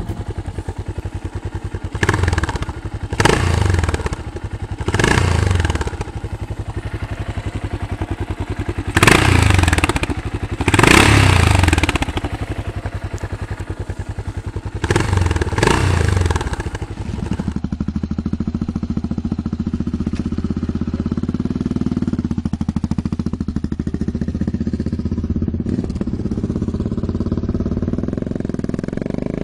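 Yamaha SRX600 single-cylinder four-stroke engine idling and revved in about six short blips. After a cut at about 17 seconds, a motorcycle engine runs steadily as the bike rides along the road, slowly growing louder.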